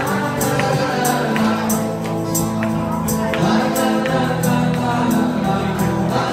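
Live acoustic music: an acoustic guitar strummed in a steady beat, about three strokes a second, under sustained notes and a singing voice.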